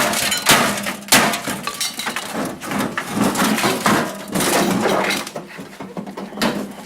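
Hammer blows and clattering sheet metal as a microwave oven is smashed apart for scrap: a few sharp strikes in the first second, then rattling and clinking of loose parts that dies down in the second half.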